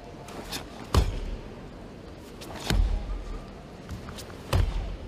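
A karateka performing the kata Jion: three sharp thuds as the feet stamp down on the floor with each technique, about a second in, near the middle and near the end, each with a short echo.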